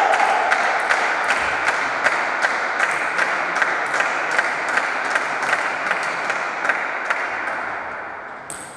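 Sharp, regular taps, about two or three a second, over a wash of applause in a large hall that slowly dies away.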